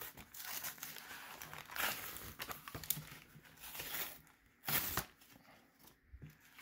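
Cardboard backing of a trading-card blister pack being torn away from its plastic shell, with the foil booster packs inside crinkling as they are handled. The tearing and crinkling is irregular, with a louder burst about five seconds in.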